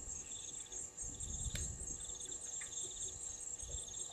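Insects chirring steadily: a continuous high, pulsing trill with a lower trill that repeats in short bursts, and a single sharp click about a second and a half in.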